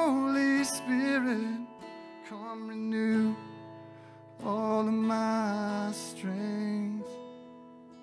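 Live worship music: a strummed acoustic guitar and a keyboard playing sustained chords, with a voice singing three long, wavering phrases over them that fade near the end.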